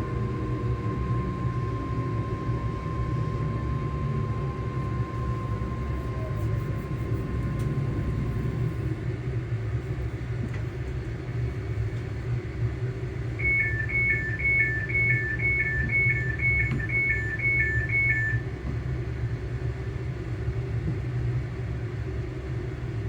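Inside a ScotRail Class 385 electric multiple unit on the move: a steady low rumble with a traction motor hum, a steady whine fading out partway through. Around the middle, about ten short alternating two-tone beeps, roughly two a second, sound over the running noise.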